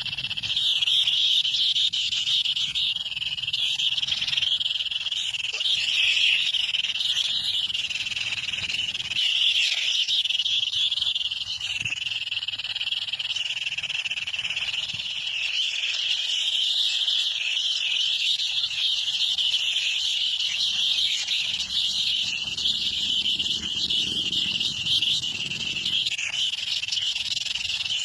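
A dense, unbroken chorus of high chirping animal calls, steady throughout.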